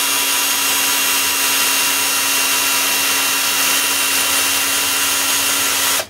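Power drill running at a steady speed, winding a small vertical mill's table feed to traverse the vise, then cutting off near the end.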